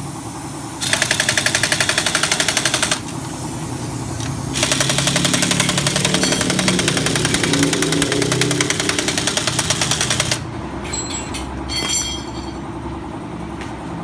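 Impact wrench hammering in two bursts, a short one and then a longer one of about six seconds, tightening the nut of a scooter's rear wheel as it is refitted. A few light metal clinks of tools follow.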